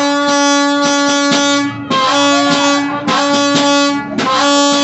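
A horn blown in four long, steady blasts, the first close to two seconds and the others a little shorter, with brief gaps between them. Voices are faintly underneath.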